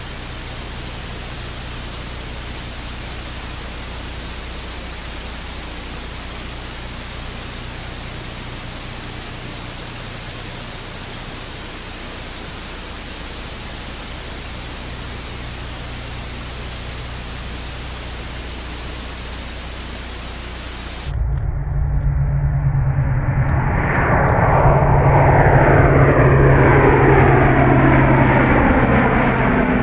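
Steady even rushing noise with a low hum. About 21 seconds in it cuts to the four Europrop TP400 turboprop engines of an Airbus A400M Atlas droning loudly as it climbs past overhead: a strong low propeller tone with sweeping falling tones, loudest near the end.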